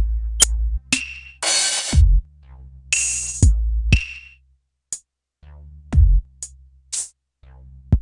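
Electronic drum-machine beat: deep kick thumps and bright snare or clap hits over a steady synth bass, playing through a compressor plugin on the master bus. The beat stops for a moment about halfway through, then comes back in.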